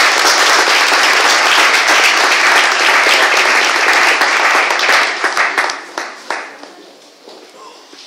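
Audience applauding: dense clapping that thins to a few scattered claps about five to six seconds in and then dies away.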